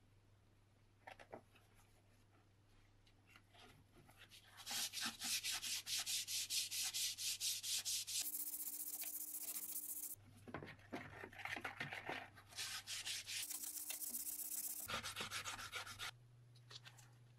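Green abrasive scouring pad scrubbing a wet sheet-metal part in a tub of soaking solution, in quick back-and-forth strokes about five a second. The scrubbing starts about four and a half seconds in and stops twice for a short steady hiss.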